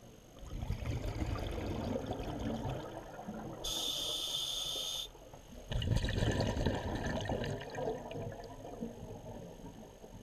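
Scuba breathing through a regulator underwater: a long rush of exhaled bubbles, a short steady hiss of an inhalation about four seconds in, then another long rush of exhaled bubbles.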